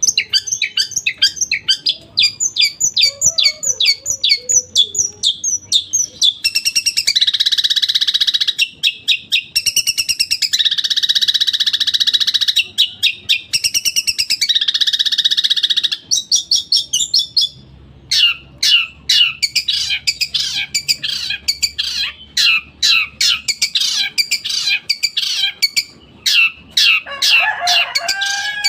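Long-tailed shrike (cendet) singing loudly. Its song is made of rapid strings of short, sharp repeated notes, broken between about 7 and 16 seconds in by several harsh, buzzing rasps about a second long, and then goes back to fast repeated notes. The song carries mimicked material from other birds, such as tree sparrow (greja) calls.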